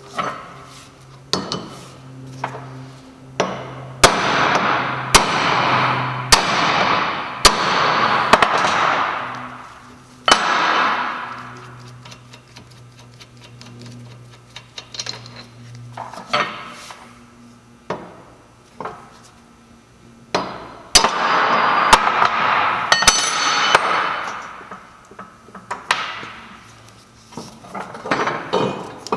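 Hammer blows on the steel and cast-iron parts of a differential, coming in clusters of sharp metallic strikes with ringing between them.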